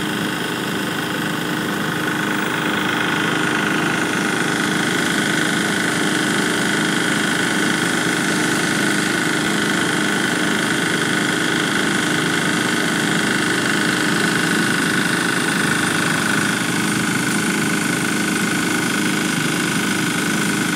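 Engine-driven flood pump running steadily at constant speed, a continuous, unchanging engine drone with a steady hum.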